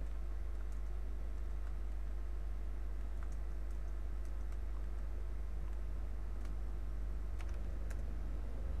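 A steady low hum with a few faint, scattered computer keyboard taps and mouse clicks.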